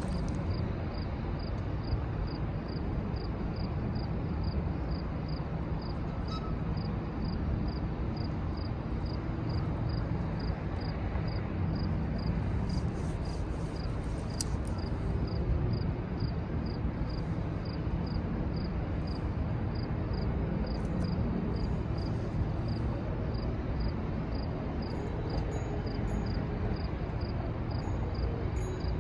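Steady low rumble of an Amtrak train's diesel locomotives running as the train rolls slowly toward the platform, with a faint, regular high ticking throughout.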